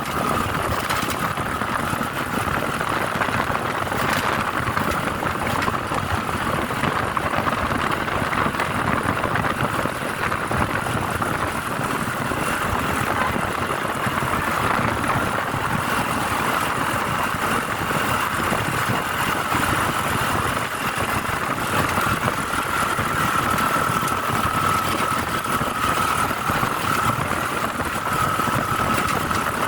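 A vehicle driving steadily, with even road and engine noise. A steady whine runs through it and becomes clearer in the second half.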